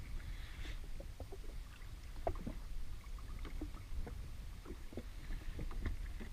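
Small waves lapping and slapping irregularly against the hull of an anchored jet ski in a light chop, over a low steady rumble.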